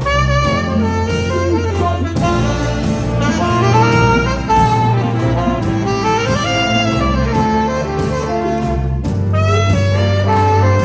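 Jazz big band playing: a horn section, saxophones to the fore, carries moving melodic lines over a walking-style bass and a drum kit with steady cymbal strokes.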